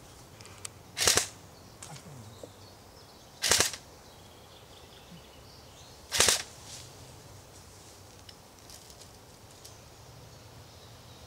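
Airsoft gun firing three short, sharp bursts, a couple of seconds apart, with quiet between.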